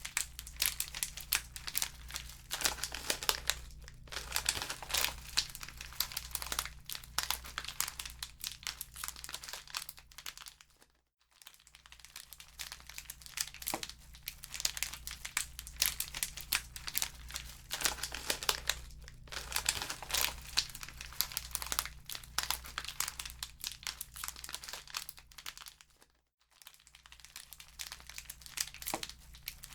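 Wood fire crackling in a fireplace, a dense, irregular run of small pops and snaps over a low steady hum. It fades almost to silence twice, briefly, and builds back up each time.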